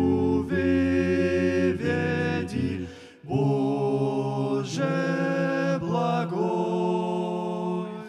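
Male vocal quartet singing a hymn in close harmony, with held chords that move from note to note. There is a short break for breath about three seconds in, then a long final chord that fades away near the end.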